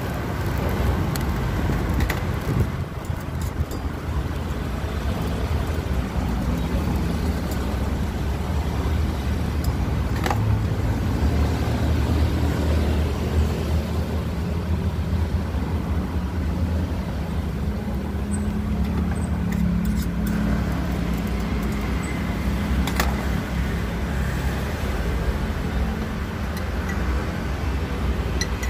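Steady road traffic noise with a low engine drone that grows stronger in the middle. A few sharp clicks come from a metal spatula against the small iron crepe pans.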